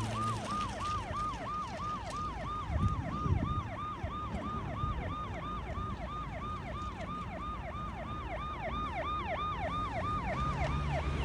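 Electronic siren of a toy ambulance, sounding in rapid repeated falling sweeps, about three and a half a second. A brief low rumble comes about three seconds in.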